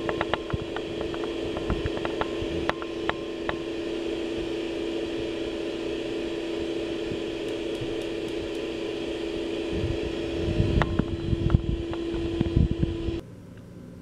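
Countertop blender motor running steadily as it blends thick chocolate cake batter until smooth, then cutting off suddenly near the end. Several sharp clicks sound over it in the first few seconds and again near the end, from the gas stove's knob and ignition button being worked.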